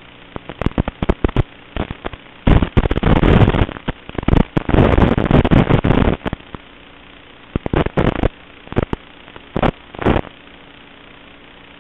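Crackling static and pops over a steady low buzz: analog FPV video receiver audio as the link from the racing quadcopter breaks up. The crackle is densest for a few seconds in the middle, with scattered bursts later that match the picture breaking up.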